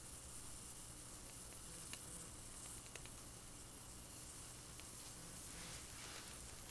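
Faint steady sizzle of water heating in a titanium cup over a homemade Super Cat alcohol stove, with a few faint ticks. Small bubbles are forming on the bottom of the cup as the water nears the boil.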